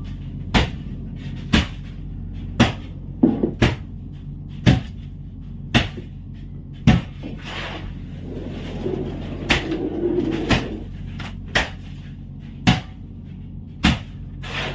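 Ribbonfish slapped down one after another onto a pile in a fish hold, making sharp knocks about once a second over a steady low hum.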